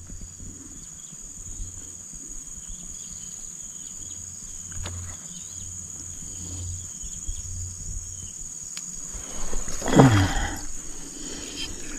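Steady high-pitched drone of insects at the riverbank, with a brief falling call about ten seconds in.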